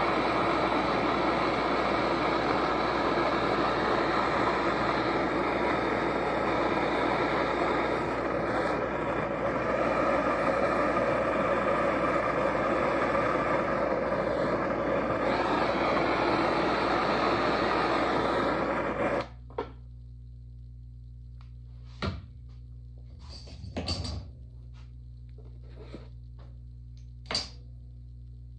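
Handheld gas torch burning with a steady hissing rush as its flame dries a freshly thrown clay cup on a pottery wheel; it cuts off suddenly about two-thirds of the way through. A low steady hum remains, with a few light knocks as hands handle the cup.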